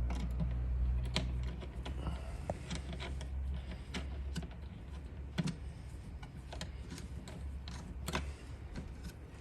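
Scattered light clicks and taps of hand work with tools and wiring on an EV wall charger install, irregular and unhurried, over a low steady hum.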